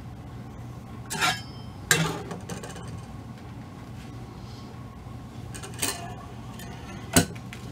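Four short clinks and knocks from handling a resin ball-jointed doll and its metal doll stand, the loudest about two seconds in, over a steady low hum.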